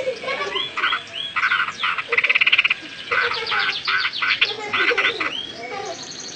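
Straw-headed bulbul (cucak rowo) singing: a loud, rich run of short repeated phrases and sweeping notes, with a fast trill a little over two seconds in.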